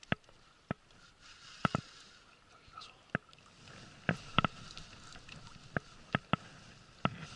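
Irregular sharp clicks and knocks from a baitcasting reel and rod, about a dozen of them, as the angler pumps the rod and tries to wind. The reel will not gain line against a heavy fish.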